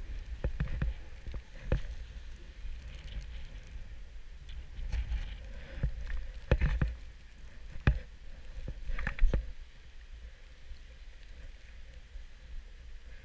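A snowboard sliding and scraping over snow, with a low rumble of wind on the microphone and scattered knocks and clatters. The loudest knock comes about nine seconds in.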